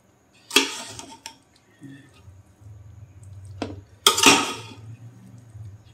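Metal ladle scraping and knocking against the inside of a large metal cooking pot as cooked biryani rice is turned and mixed. Two louder scrapes stand out, about half a second in and about four seconds in.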